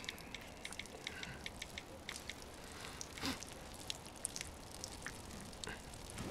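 Faint, irregular dripping with scattered small ticks over a quiet background hiss.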